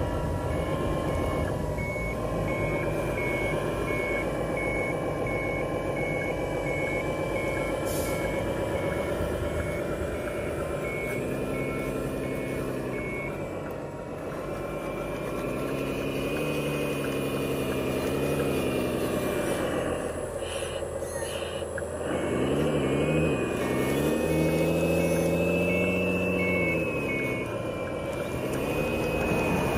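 JZModel Liebherr 580 radio-controlled hydraulic wheel loader at work. Its sound module gives a reversing beep at about two beeps a second through the first half and again near the end. Under the beeps is a mechanical whine from the model's drive and hydraulic pump that rises and falls in pitch as the machine is driven and the bucket is worked.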